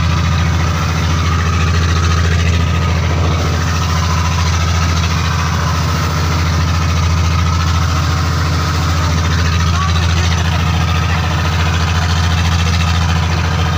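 Inboard engine of a motorized outrigger fishing boat (bangka) running steadily, a constant low drone that does not change in pitch or level.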